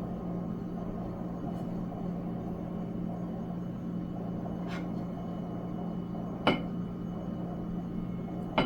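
A few sharp clinks of dishes and utensils while food is served onto a plate, the loudest about two-thirds of the way through, over a steady low hum.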